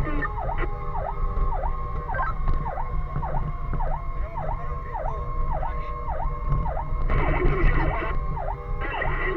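Fire engine siren sounding on the move, its tone dipping down and springing back up about twice a second, over the steady low rumble of the truck's engine and road. A second, noisier sound joins briefly near the end.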